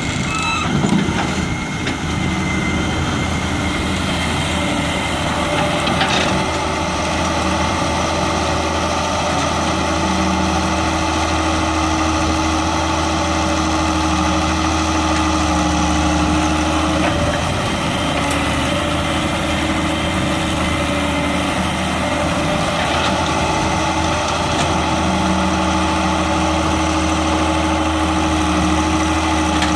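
Halla excavator's diesel engine running steadily at a constant speed, with a few faint clicks over the drone.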